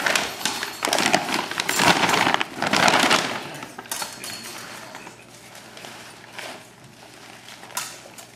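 Crinkling, clinking handling noise, with dense crackles for the first three seconds or so, then fainter scattered rustles.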